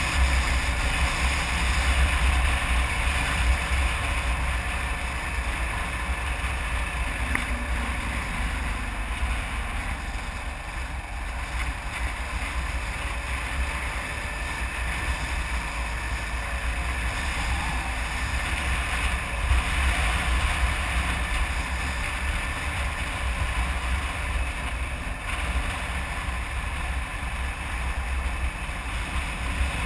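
Steady wind buffeting on the microphone of a camera mounted on a moving Kawasaki KLR 650 dual-sport motorcycle, with the bike's single-cylinder engine and road noise underneath.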